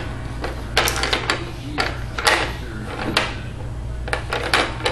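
Plastic toys on a baby's bouncy-seat activity tray clicking and clattering as the baby handles them, in irregular knocks with a short run of them near the end.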